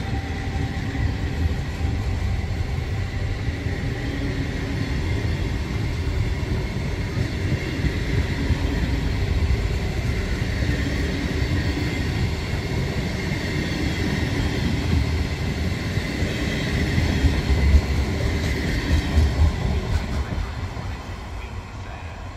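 A long passenger train of Trenitalia coaches passing close by through the station at speed: a steady rumble of wheels on the rails, fading near the end as the last coaches go by.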